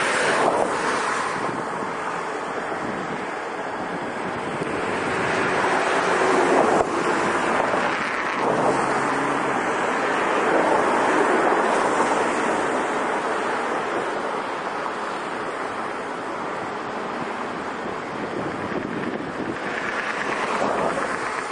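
Wind rushing over a camcorder's built-in microphone, swelling and easing in gusts.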